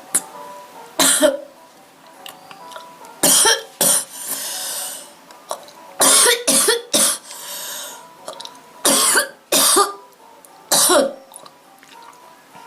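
A girl with a bad cold coughing repeatedly in short bouts, with two longer breathy sounds between them.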